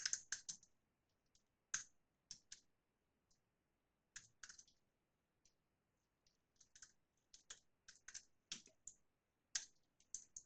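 Faint computer keyboard keystrokes, irregular and sparse, with a few quick runs of three or four keys.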